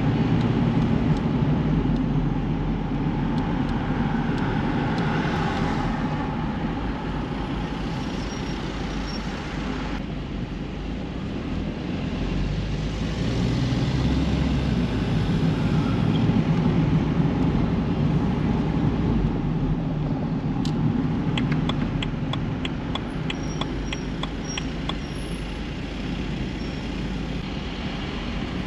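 Car driving in city traffic: steady engine and road rumble that swells and eases slowly. Toward the end comes a run of sharp, evenly spaced ticks, a few a second, for several seconds.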